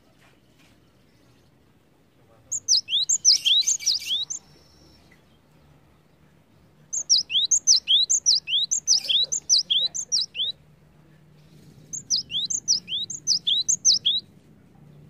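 Cinereous tit singing: three bouts of rapidly repeated, ringing two-part notes, each a quick high sweep, about three or four notes a second. The bouts come at about two and a half seconds, seven seconds and twelve seconds in.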